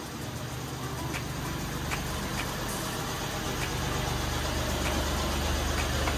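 Engine of a parked Mahindra SUV idling steadily, a low hum that grows slowly louder, with a few faint clicks.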